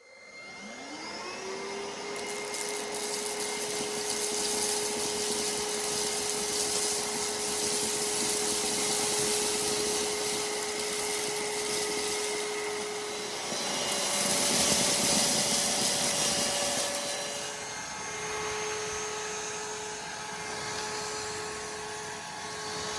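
Hausmeister HM2061 2-in-1 vacuum cleaner switched on, its motor spinning up to a steady whine within about a second and running with a rush of air. About two-thirds of the way through, the motor pitch jumps up with louder airflow for a few seconds, then settles back lower.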